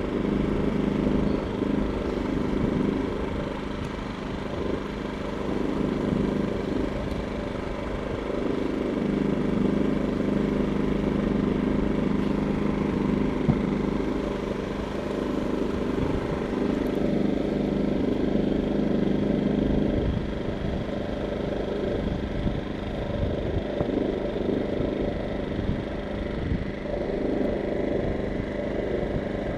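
A small engine running steadily at an even speed, a constant drone with no changes or sharp events.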